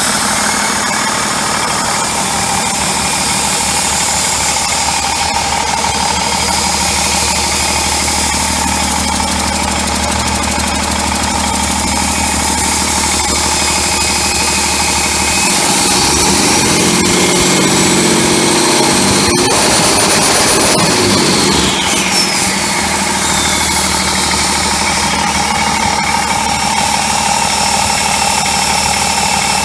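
Cummins ISB 6.7L inline-six turbo diesel running on a test stand with no exhaust pipe on the turbo, idling steadily. About halfway through it revs up for some five seconds, with a rising and falling turbo whine, then settles back to idle.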